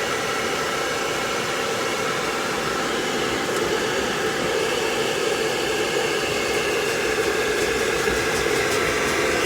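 Blow dryer running steadily, a continuous whooshing hiss with a faint motor hum.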